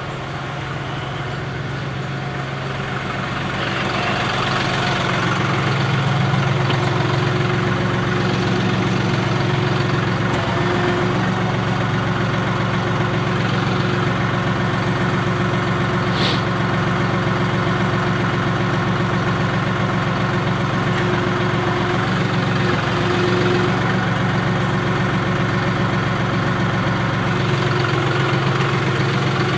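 John Deere 5075E tractor's diesel engine running steadily, its speed picking up over the first few seconds and then holding, while the three-point hitch works the box blade.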